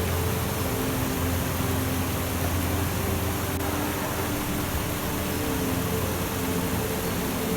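Steady rush of running water, like a stream or small waterfall, with soft, long-held low notes of ambient music shifting slowly underneath.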